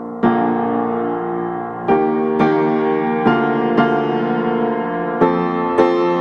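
Background piano music: slow, gentle notes struck about once a second over sustained chords.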